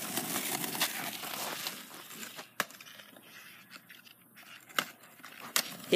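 Skateboard wheels rolling on rough asphalt, the rumble fading as the board moves away, followed by a few sharp clicks in the second half.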